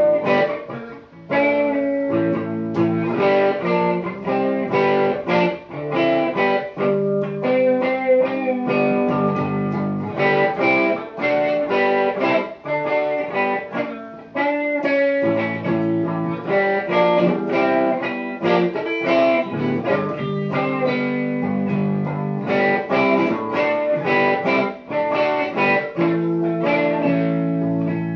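Electric guitar being played, a continuous run of picked notes and chords changing quickly, with a few brief pauses.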